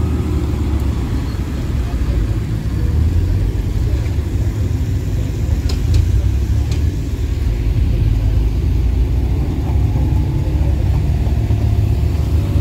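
Performance cars rolling slowly past one after another, a BMW M5, then a Renault Clio RS, then a BMW M4, their engines and exhausts giving a steady low rumble.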